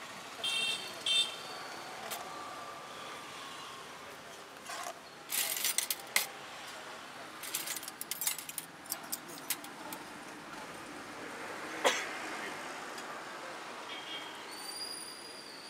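Food-stall clatter: a steel spoon and plates clinking in scattered bursts over a steady hum of street noise, with a sharp knock about twelve seconds in. Short high-pitched toots sound twice near the start and once near the end.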